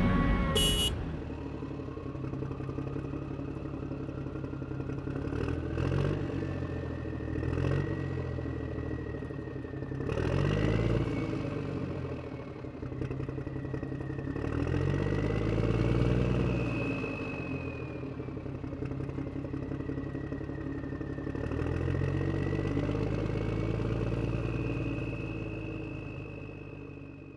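Simulated engine sound from the sound-effect module of an RC dump truck: an idling engine note that revs up and falls back about five times as the throttle is worked. A thin high whine rises and falls along with it, and the sound fades at the end.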